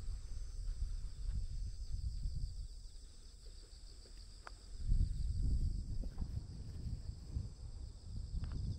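Steady high-pitched chirring of insects from the surrounding fields, with an uneven low rumble against the microphone that swells about five seconds in.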